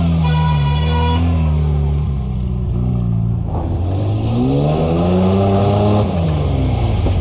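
Off-road 4x4 engines running in a mud pit; about halfway through one engine revs up, rising in pitch for a couple of seconds as an old pickup ploughs through deep mud, then drops back off near the end.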